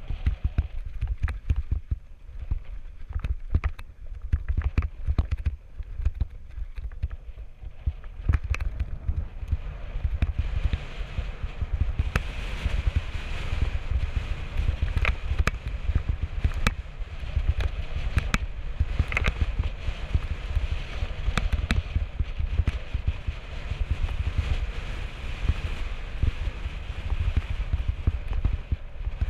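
Mountain bike rolling fast down a rocky dirt singletrack: wind rumble on the camera microphone, tyre noise and a steady run of sharp knocks and rattles as the bike hits rocks. A higher hissing rattle grows louder about halfway through.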